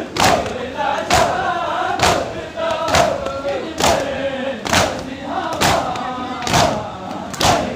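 A group of mourners doing matam, striking their chests with open hands in unison, one sharp slap about once a second, to a group of voices chanting a Muharram nauha.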